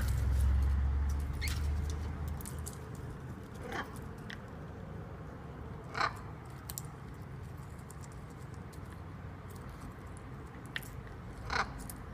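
Macaw's beak nibbling and crunching food with small clicks, and a few louder crunches spaced a couple of seconds apart. A low rumble at the start.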